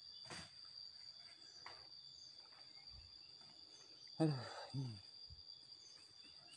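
Quiet outdoor ambience of insects droning steadily on two held high-pitched tones, with a few faint knocks and a brief low vocal murmur about four seconds in. No chainsaw is running.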